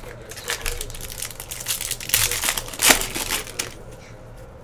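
Plastic wrapper of a trading-card pack crinkling and being crumpled: a run of crackly rustles lasting about three and a half seconds, loudest near the second and third seconds.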